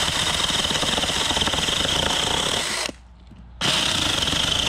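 Taranzy mini cordless electric chainsaw running and cutting through a thin branch, a steady high-pitched whine. The sound stops abruptly for under a second about three seconds in, then runs again.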